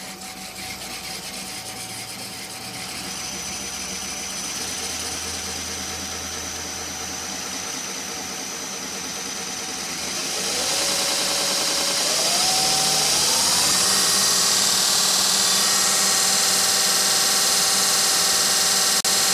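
A homemade 2x48-inch belt grinder's electric motor runs with the belt turning in reverse, at low speed at first for a tracking check. From about ten seconds in it is sped up: its whine climbs in pitch in three steps and grows louder, then holds steady.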